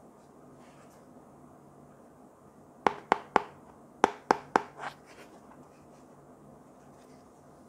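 Fingers and nails tapping and knocking against a small cardboard box as it is turned over in the hands: about seven short sharp taps in two quick clusters, between about three and five seconds in, over a faint steady hum.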